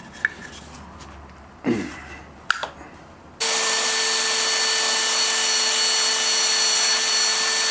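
Benchtop belt sander running with the end of a wooden bat handle held against the belt, thinning it down to about an inch. It starts abruptly about three and a half seconds in as a steady motor hum with the hiss of sanding, after a few light knocks of the wood being handled.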